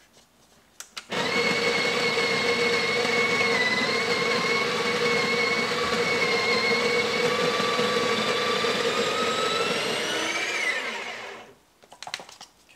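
Breville Barista Express's built-in conical burr grinder grinding a single dose of beans at grind setting 7. It starts about a second in and runs steadily for about ten seconds, its whine rising in pitch near the end as the burrs run empty, then stops.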